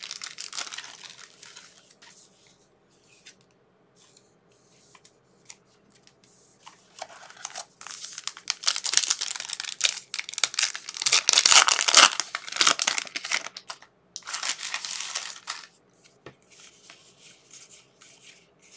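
A foil trading-card pack being torn open and its wrapper crinkled. The ripping and rustling come in a dense run through the middle of the stretch and are loudest about two-thirds of the way through, with only light card handling before and after.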